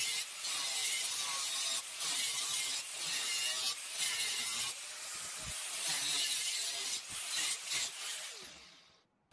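Angle grinder with a cutoff wheel cutting through steel plate: a harsh, hissing grind with a few brief dips as the wheel bites, fading away near the end as the cut is finished.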